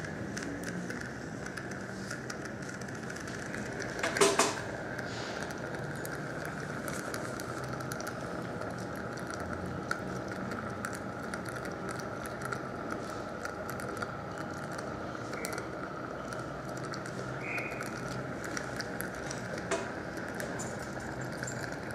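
Steady hiss and hum of a dental surgical suction running, with scattered small clicks of metal instruments and a louder clatter about four seconds in.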